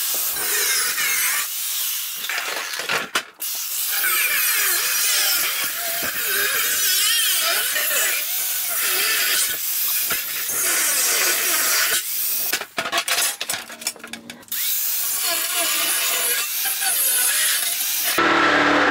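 Angle grinder cutting through a steel car fender. Its high whine wavers as the disc bites, and it stops briefly about three seconds in and again for a couple of seconds midway. Near the end a louder, lower-toned noise takes over.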